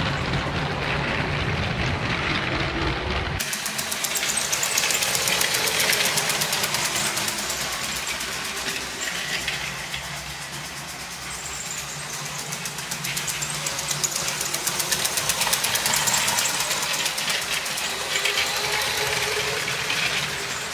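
LEGO Maersk freight train 10219 running on plastic LEGO track, its Power Functions train motor whirring and the wheels clattering rapidly. A low rumble in the first few seconds gives way abruptly to a higher, faster clatter that swells louder twice as the train passes close by.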